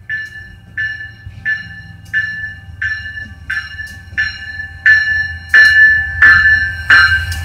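Diesel locomotive bell ringing in an even rhythm, about one and a half strikes a second, getting louder as the locomotive draws near. The low rumble of its diesel engine builds underneath toward the end.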